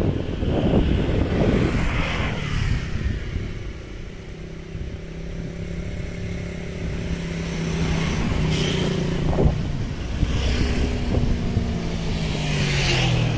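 A motor vehicle engine running steadily, its pitch sliding down near the end, with wind gusting on the microphone at the start.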